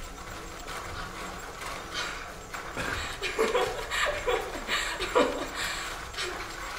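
Short chuckle-like vocal sounds, about four quick falling ones in a row about halfway through, over a steady rustle of paper being handled.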